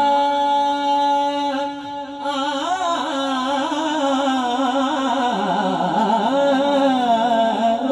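A young man singing a Punjabi devotional kalam solo. He draws out long held notes, and in between the melody wavers in ornamented runs.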